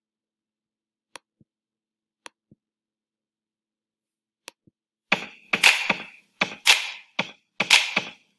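Three pairs of soft computer mouse clicks over near silence. About five seconds in, the soundtrack of an animated video starts with a run of sharp percussive hits in a steady rhythm.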